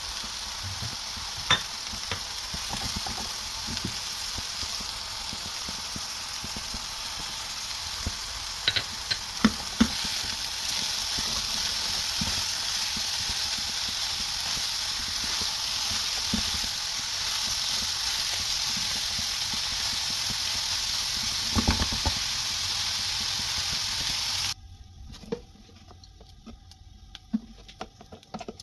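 Food frying in hot oil, a steady sizzle with a few sharp knocks of a utensil against the pan. The sizzle cuts off suddenly near the end, leaving a few quieter clinks.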